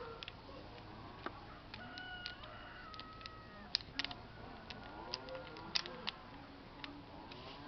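Chickens clucking with short calls, over scattered light clicks and knocks. No pressure washer is running.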